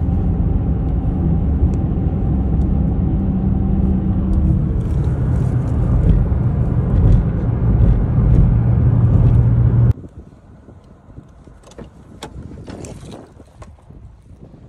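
Cabin noise of a car driving on a highway: a loud, steady rumble of tyres and engine. About ten seconds in it stops abruptly, leaving much quieter outdoor sound with scattered light clicks and knocks.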